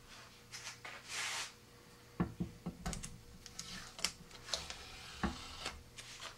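Painter's tape being peeled off and crumpled in gloved hands: a short rustle about a second in, then scattered sharp crackles and clicks.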